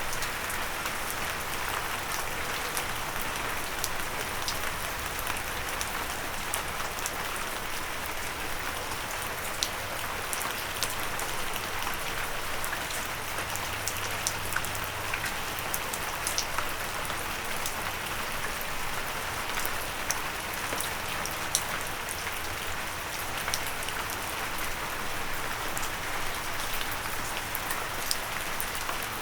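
Steady rain falling and pattering on a windowsill, a constant hiss with many sharp drop ticks scattered through it.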